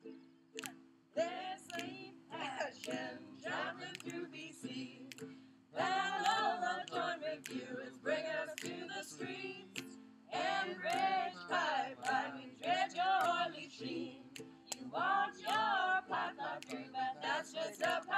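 A group singing together, mostly women's voices, to strummed ukulele and acoustic guitar. The strumming plays alone at first and the singing comes in about a second in, growing louder around six seconds in.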